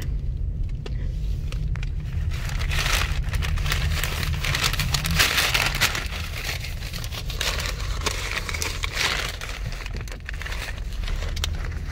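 Paper fast-food bags crinkling and rustling in spells, over the steady low rumble of the car.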